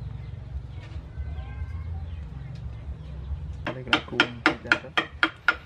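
A quick run of about nine sharp knocks, roughly five a second, from a mallet striking a carving chisel into the wood block. They come over a steady low hum that fades out as the knocks begin.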